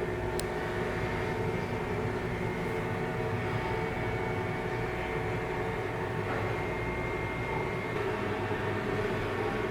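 Ship's diesel machinery running steadily: a constant drone with several held tones, with no change in speed.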